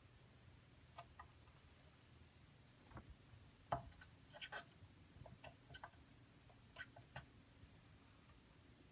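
Near silence broken by about ten small, sharp clicks and taps of a screwdriver and soldering-iron tip against a circuit board during soldering, the loudest just under four seconds in.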